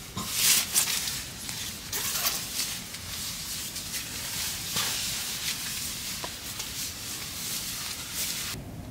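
Food sizzling and crackling in a frying pan, cutting off abruptly near the end.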